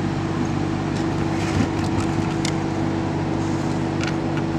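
Steady mechanical hum with a constant tone, and a few faint light clicks as the metal flash bar is handled against the camera.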